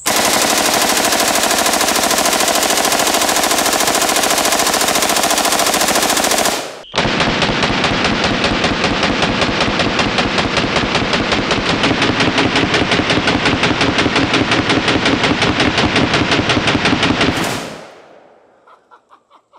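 Full-auto AR-15 in 5.56 firing long, rapid continuous strings from a 90-round drum, with a brief break about seven seconds in. The gunfire stops a couple of seconds before the end.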